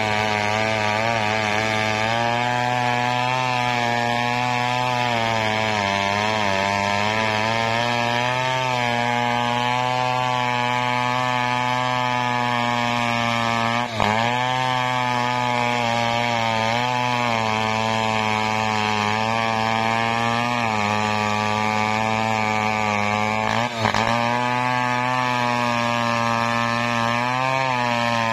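Engine-driven saw running steadily under load as it cuts coconut wood, its pitch wavering up and down as the cut loads it, with two brief dips about halfway and near the end.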